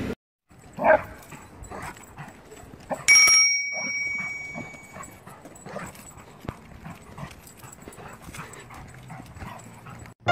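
A dog gives a short high call about a second in. About three seconds in, a sharp ringing ding sounds and fades over about two seconds, followed by light, scattered taps and clicks.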